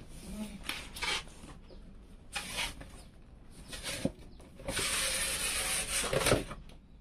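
Cardboard graphics-card box being handled on a table: a few short scrapes and rubs, a click about four seconds in, then a steady sliding scrape lasting about a second and a half, as of the inner box sliding out of its sleeve.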